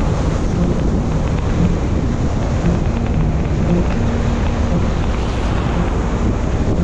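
Steady wind buffeting the camera microphone on a moving Vespa scooter, with the scooter's engine faint under it.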